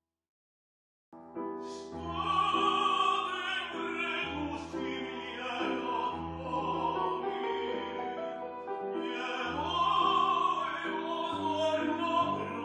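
An operatic tenor voice singing with piano accompaniment. It begins after about a second of silence.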